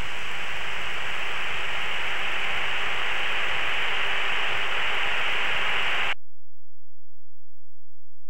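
Steady hiss of cockpit intercom and radio noise on a T-45 jet's HUD tape recording, with no voice keyed, cutting off abruptly about six seconds in as the recording ends.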